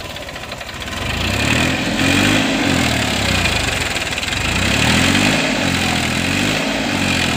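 Massey Ferguson 241 DI tractor's three-cylinder diesel engine labouring under heavy load as the tractor tries to drive out of deep paddy mud. The engine speed rises and falls twice.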